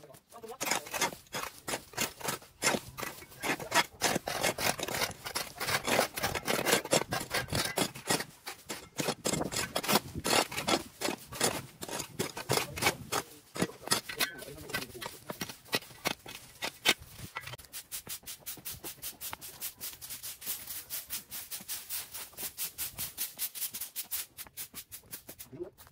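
Quick repeated scraping strokes, a few a second, becoming steadier and more even in the second half.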